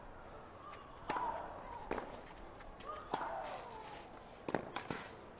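Tennis ball struck back and forth with rackets in a rally: about five sharp hits a second or so apart. Two of the strokes come with a drawn-out player's grunt.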